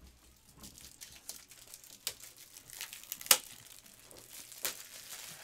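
Plastic wrapping crinkling and tearing as it is handled, a run of irregular crackles with one sharp snap about three seconds in.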